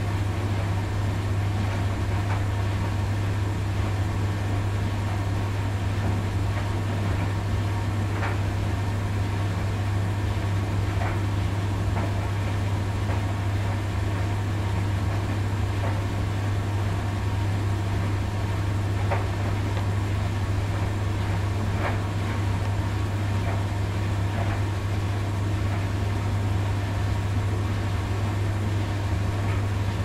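Steady low electrical or mechanical hum that never changes, with a few faint clicks scattered through it.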